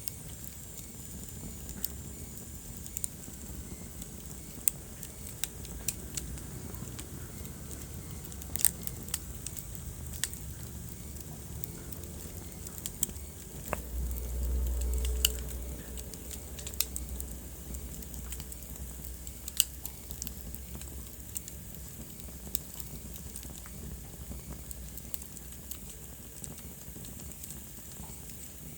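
Wood fire crackling in a fireplace: scattered sharp pops and snaps over a steady low rumble, which swells for a couple of seconds about halfway through.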